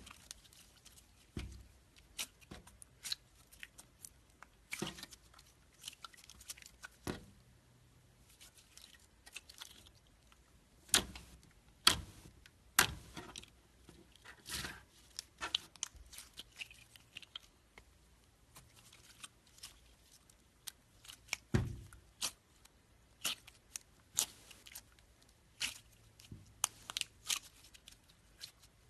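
Slime being squeezed and poked by hand, making irregular sticky clicks and crackling pops, a few of them louder.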